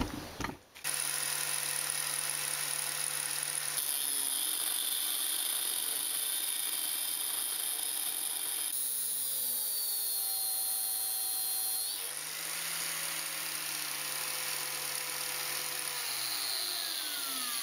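Angle grinder in a chop-saw stand starting up and cutting metal with a small, worn Falc cut-off disc, its motor tone sagging and shifting under load, with a high grinding hiss. Near the end its pitch falls as it winds down. The disc's depth is not enough to cut through.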